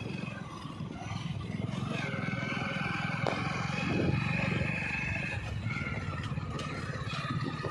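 Outdoor ambience: a steady low rumble with long, drawn-out high tones over it and a few faint clicks.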